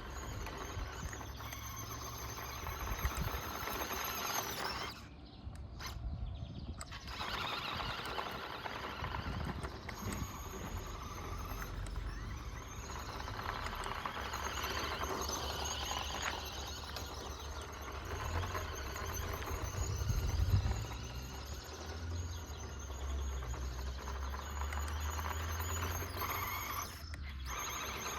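Small electric motor and gears of a 1:14-scale Audi RS Q e-tron RC car whining as it drives over dirt, with a low rumble underneath. The whine cuts out for a couple of seconds about five seconds in, and again briefly near the end.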